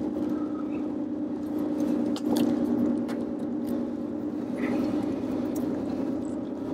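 Car driving on a highway, heard from inside the cabin: a steady engine and road drone, with scattered light ticks.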